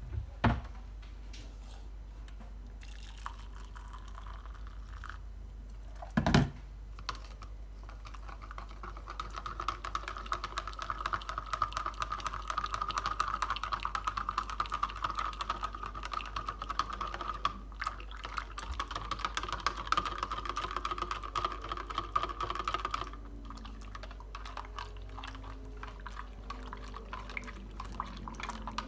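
Metal teaspoon stirring condensed milk briskly in a plastic measuring jug, a fast run of light clicks and scraping as the spoon strikes the jug's sides, strongest from about eight seconds in and easing off near the end. A single loud knock about six seconds in.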